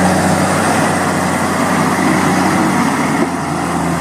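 Heavy vehicle engine idling steadily, with a low, even hum.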